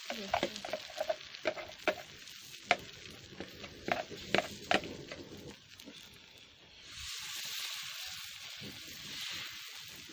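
A metal spoon tapping and scraping in a small frying pan as flour batter is spread, a run of sharp clicks over the first five seconds. From about seven seconds in, the batter sizzles steadily in the hot pan.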